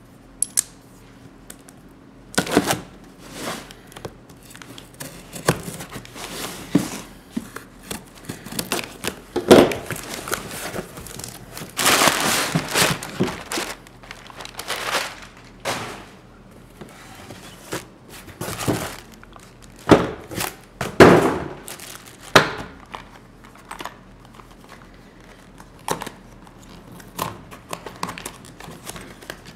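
A cardboard shipping box being unpacked by hand: crumpled brown packing paper rustling and crinkling, tape and cardboard tearing, and irregular knocks as the contents are handled. The longest stretch of paper rustling comes about twelve seconds in.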